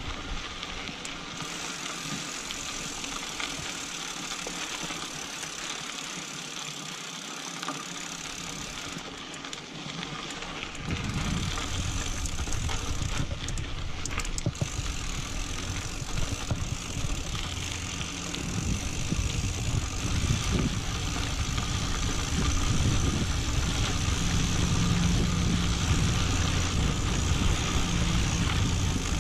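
Mountain bike rolling over a rocky dirt singletrack: tyre crunch and bike rattle, with wind rumbling on the microphone that grows louder about eleven seconds in and again past the twenty-second mark.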